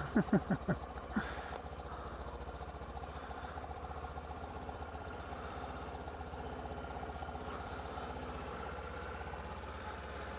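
Motorcycle engine idling steadily while the bike stands still. In the first second a few short, falling vocal calls sound over it.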